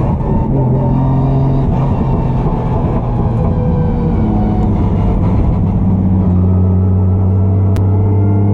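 Drift car's engine running hard under throttle, its note shifting up and down for the first few seconds, then held steady and loud over the last couple of seconds.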